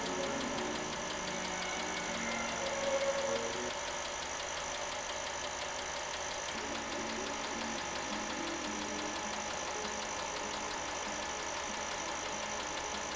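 An 8mm film projector running, a steady mechanical whirr with a fast, even clatter of the film transport.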